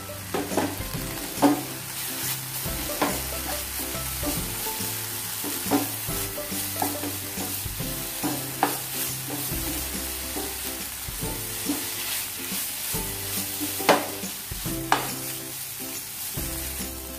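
Wooden spatula stirring and scraping a thick onion-tomato masala in a frying pan, the masala sizzling in the oil. Irregular knocks of the spatula against the pan, the loudest two near the end.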